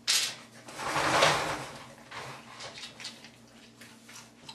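A sudden metal clank at a stainless-steel scent-detection sample tray, followed by about a second of rushing, scraping noise, then a few quieter small clicks.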